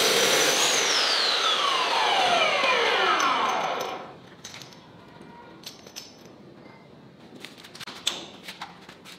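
Abrasive chop saw's motor and cutting disc winding down after a cut, a falling whine that fades out over about four seconds. Then a few light clicks and knocks as the cut steel piece is handled at the saw's vise.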